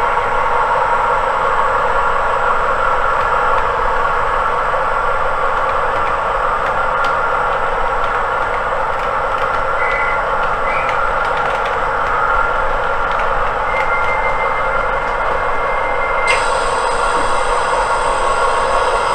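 Sound decoder in an N gauge model diesel multiple unit playing its engine sound through the model's tiny speaker: a steady, thin running noise. Short high tones come about halfway, a longer steady tone follows later, and near the end the sound suddenly turns brighter and hissier.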